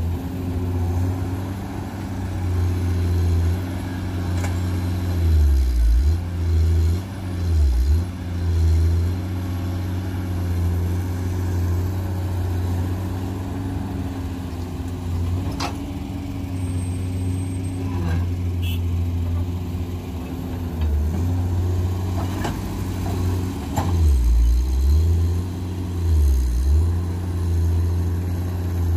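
Komatsu PC210-8 excavator's diesel engine running under digging load, its speed sagging several times as the hydraulics load it, a sign of what the uploader calls an engine overload problem. A few sharp knocks come through in the second half.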